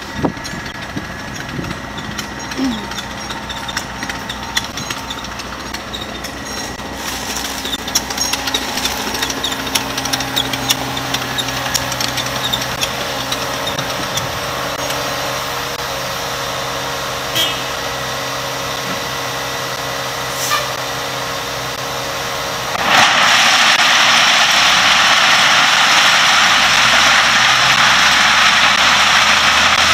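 Engines of a dump truck and a Cat 247B compact track loader running as the truck backs up. About 23 seconds in, the dump bed tips and a load of gravel pours out in a loud, steady rush that lasts to the end.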